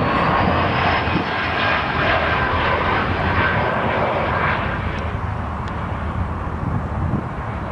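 Embraer 175 regional jet passing by on final approach to land: the rush of its turbofan engines with a steady high whine, loudest for the first four or five seconds and then fading.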